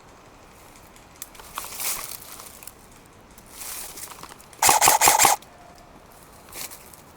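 A short burst of airsoft gunfire, about six rapid shots with a buzzing mechanical tone under them, typical of an electric airsoft gun on full auto, about halfway through. Before it there is softer rustling of movement through brush.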